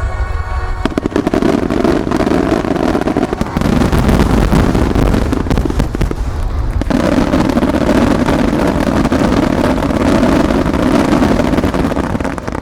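Fireworks finale barrage: many shells bursting close together in a continuous mass of booms and crackle, at its loudest from about four seconds in and easing off near the end.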